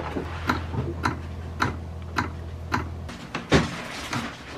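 Electric fuel pump of a diesel fuel-polishing and filter system running with a low steady hum while filling the filter bowl, cutting off about three seconds in. Light clicks come about twice a second, with a sharper knock just after the pump stops.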